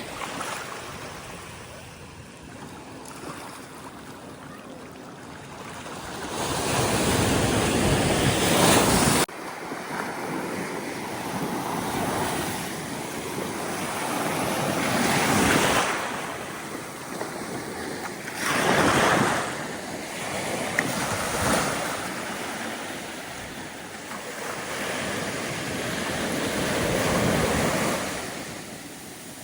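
Ocean surf washing onto a beach in swells every few seconds, with wind rumbling on the microphone. The loudest swell, about seven seconds in, cuts off sharply.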